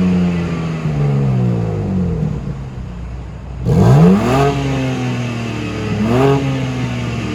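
Exhaust of a 2021 BMW M3/M4 Competition's twin-turbo straight-six: revs sink slowly for the first three seconds, then a sharp rev about halfway through and a second, shorter one near the end.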